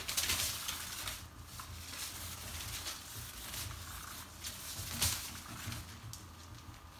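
A kitten and a ferret scampering and pouncing on artificial turf: irregular scuffling and rustling of paws, loudest just after the start and again about five seconds in, over a faint steady low hum.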